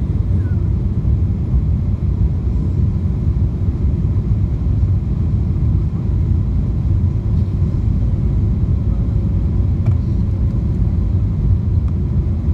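Steady low rumble of jet engine and airflow noise inside the cabin of a Boeing 777-200 descending on final approach with its flaps extended.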